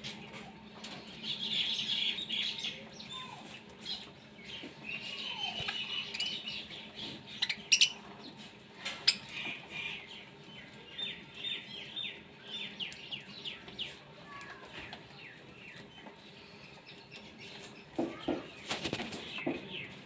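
Budgerigars chirping in quick runs of short, high notes. Two sharp clicks come just past the middle, and a brief rustling flurry near the end.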